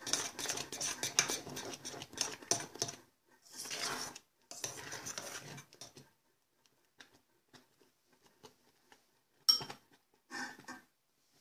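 Spoon stirring thick oatmeal, scraping and clinking against a stainless steel saucepan for about six seconds. Then come sparse soft ticks, and a sharp clink near the end.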